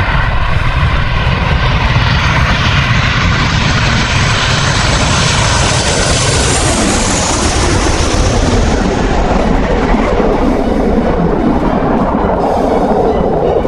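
Fighter jet engine noise as the jet passes by, loud and steady, its high whine sweeping down in pitch about seven seconds in as the sound deepens.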